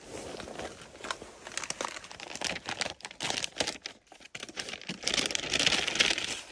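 Plastic MRE flameless-ration-heater bag crinkling and rustling as it is handled and squeezed, with a frozen meal pouch being worked into it after water is poured in. The crinkling is loudest near the end.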